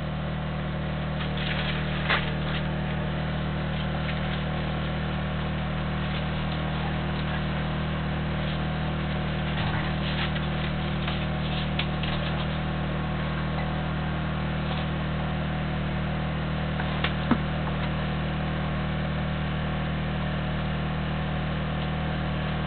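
A 2 kilowatt portable petrol generator running steadily, giving a constant low hum. Two short knocks break through, about two seconds in and again about three-quarters of the way through.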